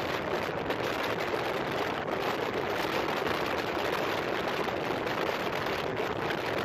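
Steady rushing noise of a motorcycle ride in the rain, with wind and road noise that covers any clear engine note.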